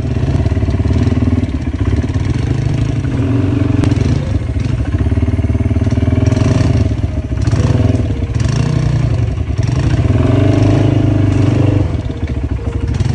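Kawasaki ATV engines running on a jungle dirt trail, the engine note rising and easing several times as the throttle is worked over rough ground, with a few brief knocks and clatter.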